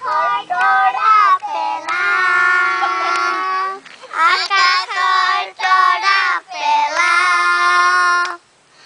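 Children singing a song, unaccompanied, with long held notes; the singing breaks off shortly before the end.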